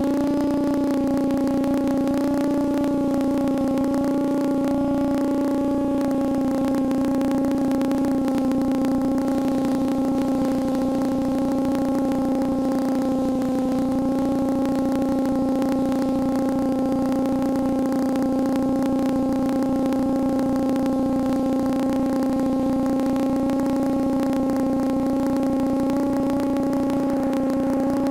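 Quadcopter's four brushless motors spinning 8-inch two-blade props, droning in a steady hover: one constant hum with a ladder of overtones, its pitch wavering only slightly.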